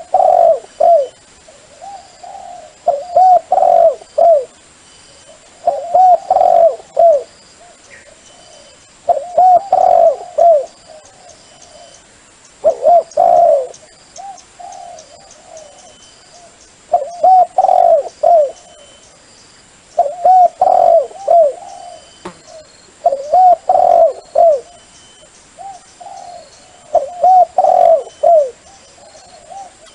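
Dove cooing: a multi-note cooing phrase repeated about every three to four seconds, about nine times.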